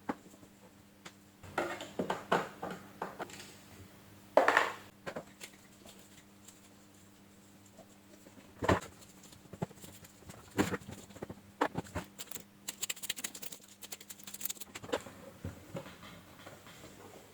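Scattered clicks, knocks and scrapes of plastic parts being handled as a Panasonic MC-CJ911 vacuum cleaner is taken apart by hand. A longer scraping rattle comes about four seconds in, and a sharp knock about halfway through.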